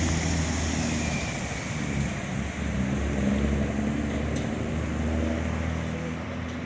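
Floodwater flowing down a street, mixed with the steady hum of vehicle engines running.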